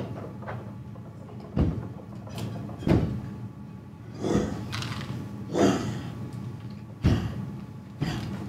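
About six dull, heavy thuds, roughly one every second and a half, over a low steady hum.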